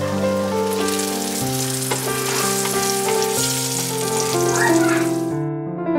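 Bolani, a large stuffed Afghan flatbread, sizzling in oil on a hot griddle pan as it starts to fry, over soft piano music. The sizzle cuts off suddenly near the end.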